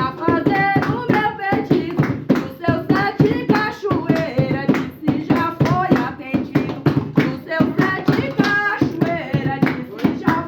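Singing of an Umbanda ponto (devotional chant) over steady, quick hand clapping that keeps the beat.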